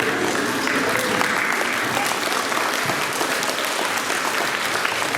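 Crowd of schoolchildren applauding: many hands clapping steadily at once.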